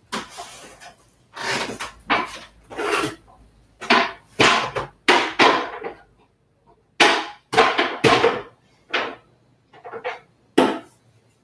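A string of irregular knocks, clatters and rustles as objects are picked up, moved and set down on a cluttered table, about a dozen separate sounds with short gaps between.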